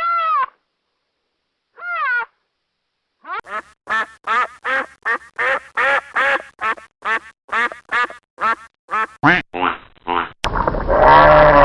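Duck quacking: a fast run of about twenty short quacks, roughly three a second. Before it come two drawn-out arching calls, and near the end it cuts suddenly to a louder, different sound.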